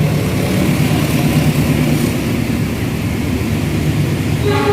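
A train's engine running steadily close by, a low even hum with no break. A new pitched tone starts near the end.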